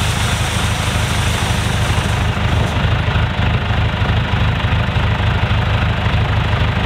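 John Deere tractor's diesel engine idling steadily.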